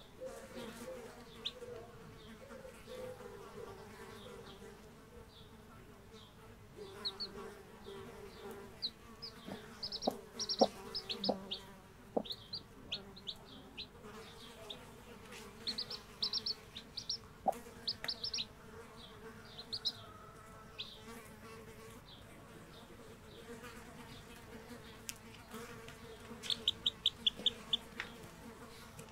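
Two-day-old chicks peeping: short, high cheeps, some single and some in quick runs of four or five, over a steady low buzzing hum.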